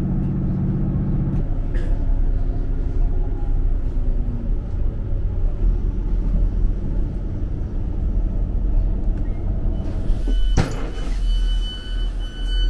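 Diesel passenger train running: the underfloor engine's steady hum at first, then the carriage rumbling along the track. About ten and a half seconds in, a knock, then a high beeping that sounds on and off as the doors open.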